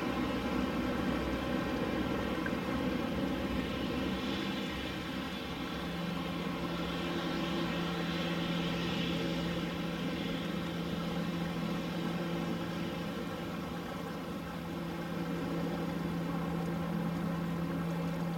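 Bombardier Dash 8 Q400 turboprop engines and propellers running at taxi power: a steady drone of many even tones, with a strong low hum joining about six seconds in. A Boeing 737-800's jet engines add a faint hiss as it taxis past in the middle.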